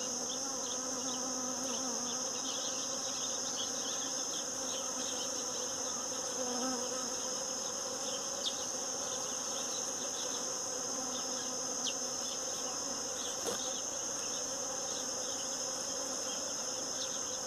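Many Africanized honeybees buzzing steadily as they forage among the blossoms, a continuous low drone, over a constant high-pitched insect trill and a few faint short chirps.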